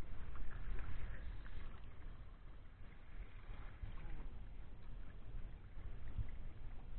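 Low, fluctuating rumble of wind on the microphone over a light outdoor hiss, with a few faint clicks in the first second or so.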